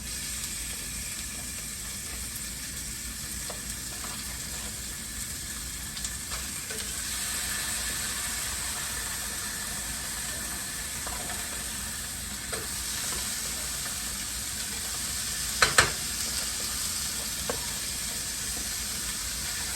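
Beef hamburger patties sizzling steadily in hot grease in a frying pan, with two sharp knocks about three-quarters of the way through.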